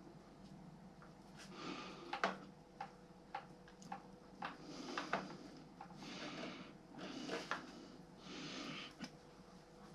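Quiet handling of motorcycle wiring and connectors: a scatter of sharp little clicks and rustles as the wires are worked on and joined. Between them come several noisy breaths close to the microphone, over a faint steady hum.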